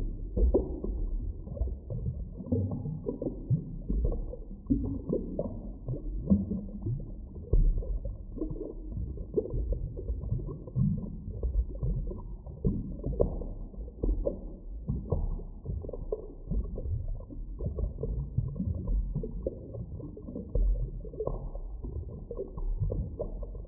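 Underwater drowning sound effect: dense, irregular bubbling and gurgling over a deep rumble, muffled with no highs, as if heard beneath the water.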